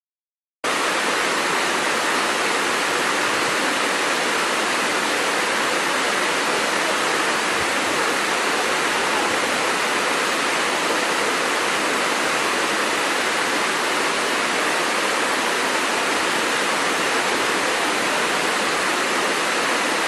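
Waterfall: the steady, even rush of falling water, a loud hiss with little bass, cutting in suddenly about half a second in.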